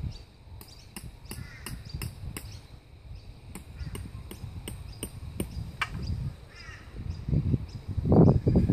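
Hammer tapping a tent peg into the ground: two runs of quick, sharp metal taps, about three or four a second, with one harder blow after them. Birds call in the background.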